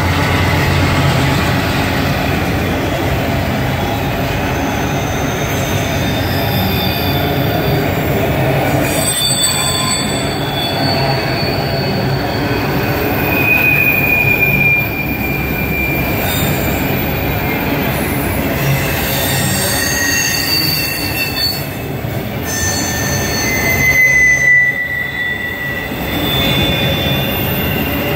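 Freight train of autorack cars rolling past close by, a steady loud rumble of wheels on rail, with short high-pitched wheel squeals now and then.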